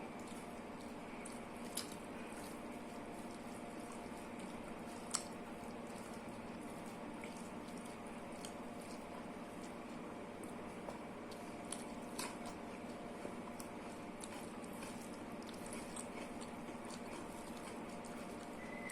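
Faint eating sounds of someone eating rice and dal: soft wet chewing and squishing, with a few sharp clicks or crunches, the loudest about five seconds in, over a steady low hum.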